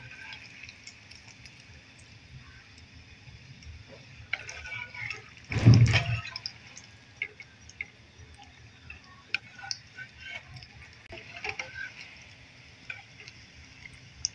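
A breaded sandwich shallow-frying in hot oil in a metal pan: faint sizzling and crackling with scattered sharp pops, and clicks of metal tongs as it is turned. About six seconds in comes one louder, dull bump.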